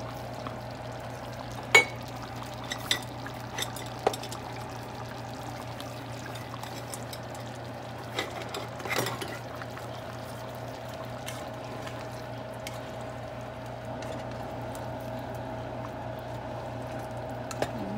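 Kitchen utensils and containers clinking and knocking against a cooking pan, a few short sharp knocks, the loudest about two seconds in and more around eight to nine seconds, over a steady low hum.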